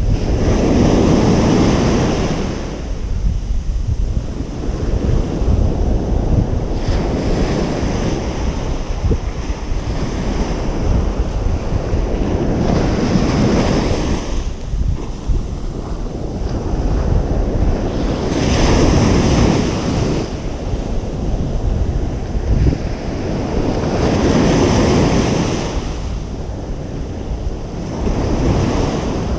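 Ocean surf breaking on a beach, each wave swelling and washing out, about one every six seconds, over a steady low rumble.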